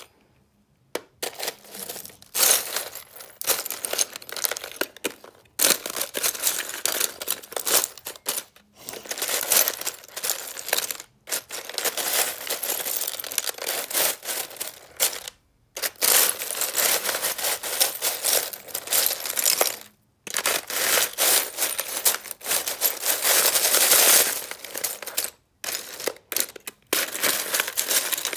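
Metal fork scraping and chipping at slabs of freezer frost ice in a plastic freezer drawer: gritty crunching and scraping in bursts of a few seconds, with short breaks between.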